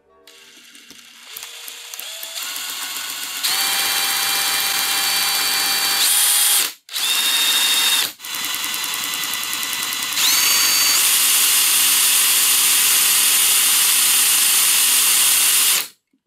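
Cordless drill spinning the camshaft of a 3D-printed engine's contact-breaker ignition. Its motor whine climbs in steps as it speeds up, cuts out briefly twice about seven and eight seconds in, and stops just before the end. The points are switching fast enough to keep up a spark.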